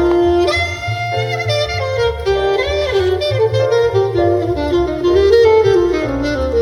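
Jazz trio music playing through a Mercedes C-Class W205's Burmester surround sound system: a horn melody with bending notes over a deep upright bass line.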